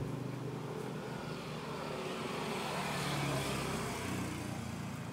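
A road vehicle passing by, its engine and tyre noise swelling to a peak about three seconds in and then fading.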